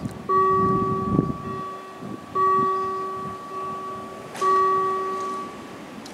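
A warning bell at a level crossing strikes three times, about two seconds apart. Each strike rings with a clear tone that fades away, signalling an approaching train.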